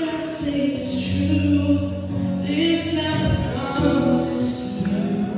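Men's voices singing a slow pop ballad live, with acoustic guitar accompaniment. The notes are held long and change every second or two.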